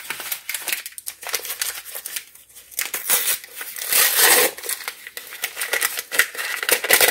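Crinkling and rustling of a thin instant pudding mix pouch being opened and handled over a mixing bowl, an irregular crackle that is loudest about four seconds in.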